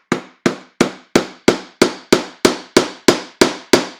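Small hammer striking a screwdriver held as a drift, about three sharp metal taps a second in a steady rhythm, driving a new bar stud down into a Homelite Super 2 SL chainsaw's case.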